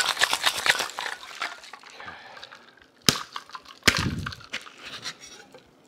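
Ice rattling in a metal cocktail shaker being shaken hard, a fast even rhythm that stops about a second in. Two sharp knocks follow a few seconds later as the shaker is handled.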